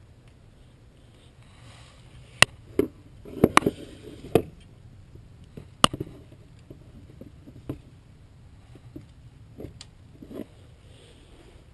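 Metal brake caliper hardware clicking and clinking as it is handled and fitted by hand at a rear brake caliper. There is a cluster of sharp knocks about two to four seconds in, then scattered single clicks.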